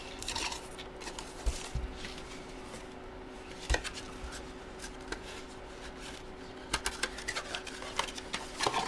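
Scattered clicks, taps and rustles of sealed boxes and packaging being opened and handled by hand, over a faint steady hum; the taps come more often near the end.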